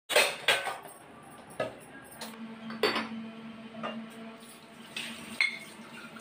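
Stainless steel vessels and glass jars clinking as washed dishes are handled: a string of separate sharp clinks about a second apart, over a faint low steady hum that starts about two seconds in.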